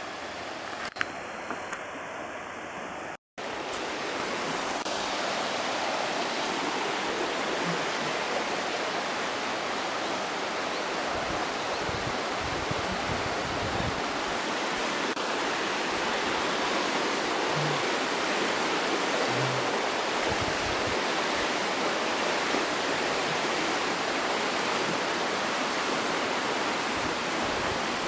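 Steady, even rush of river water flowing over rocks. It starts after a brief cut about three seconds in and stays loud and constant.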